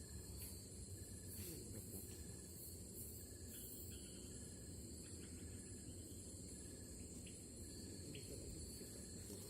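Night insect chorus in tropical forest: a steady high-pitched trill, with short chirps repeating about once a second and a low background rumble.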